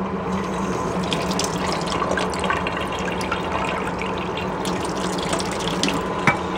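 Kitchen faucet running tap water in a steady stream into a stainless steel sink, then into a small glass bowl held under it; the flow stops near the end.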